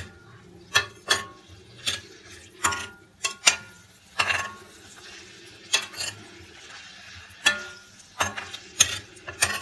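A spoon stirring chicken and beef frying in oil in a stainless steel pot: irregular sharp knocks and scrapes of the spoon against the pot, some with a short ring, over a faint sizzle.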